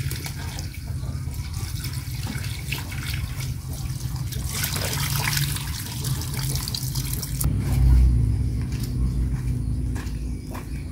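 Water running from a garden hose onto chopped mustard greens in a plastic basket as they are rinsed, splashing harder for a few seconds and stopping abruptly about seven seconds in. A low rumble follows just after.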